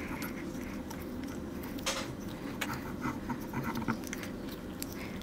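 Faint, scattered small clicks and ticks of a 3/16-inch Allen wrench being turned by hand, driving in the main assembly bolt that fastens a crossbow's bow assembly to its stock.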